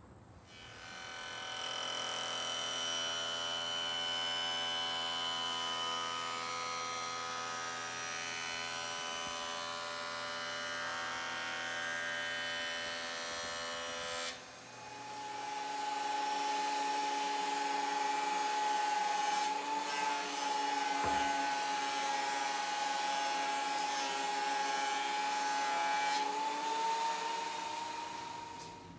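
Woodworking power-tool motors running. One spins up and runs steadily with a hum and whine. After a cut about halfway, a benchtop jointer spins up and runs with a steady high whine that rises slightly near the end.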